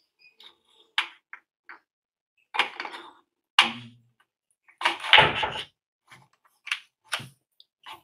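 Scattered handling noises as a gaming mouse is connected by USB: a few separate clicks, knocks and rustles, the loudest a thump about five seconds in.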